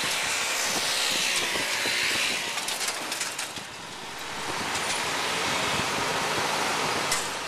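A small motor scooter's engine running as it passes close by, swelling and fading over the first few seconds, then steady traffic and road noise.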